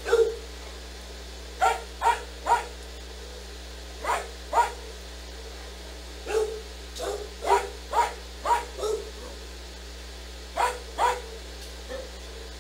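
A dog barking: about fourteen short, sharp barks, mostly in quick pairs and runs of two or three, with pauses of a second or two between the groups.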